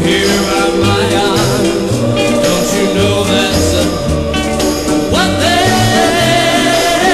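A mid-1960s soul ballad record playing: a band with a walking bass line. About five seconds in, the melody rises into a long held note.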